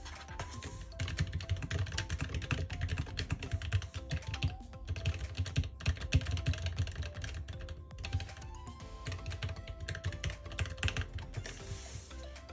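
Typing on a Keychron K3 low-profile mechanical keyboard with Gateron Brown switches: fast runs of key clicks in three bursts, with short breaks about four and eight seconds in. Background music plays underneath.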